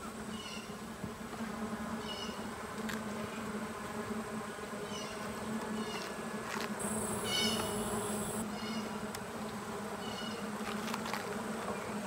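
Honey bees buzzing around an open horizontal Layens hive: a steady low hum of many wingbeats. Short high chirps recur every couple of seconds over it, with a few faint clicks.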